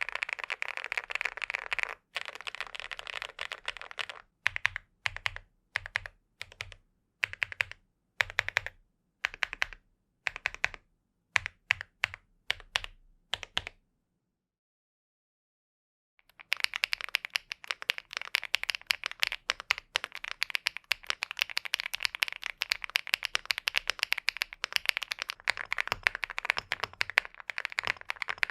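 INKY 75 mechanical keyboard being typed on fast, keys clacking densely. In the middle stretch the typing comes in short separate bursts with a deeper thud under the clicks. It drops to dead silence at an edit about halfway through, then steady fast typing resumes.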